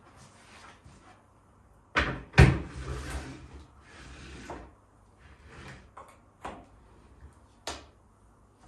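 Hard kitchen objects knocking and clattering as they are handled and set down, loudest in two knocks about two seconds in, then lighter handling noise and a few sharp clicks.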